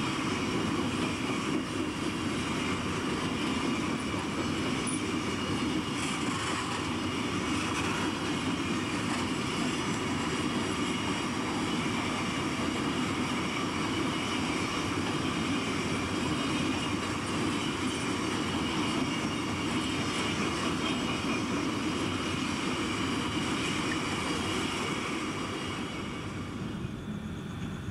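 A long train of ore hopper wagons rolling past, with a steady rumble and clatter of steel wheels on the rails. It fades down near the end.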